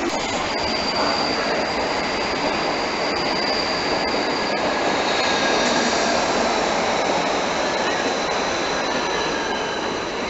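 Berlin U-Bahn train running along an underground platform: a steady rumble of wheels on rails, with thin, high wheel-squeal tones held for several seconds that shift slightly lower about halfway through.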